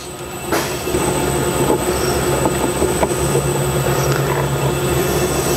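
A machine running steadily, a low hum with a constant higher tone, building up over the first second, with a few faint clicks.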